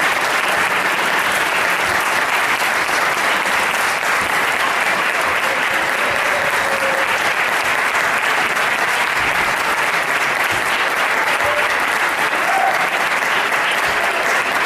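Audience applauding, a dense, steady clapping at the end of a choir's song.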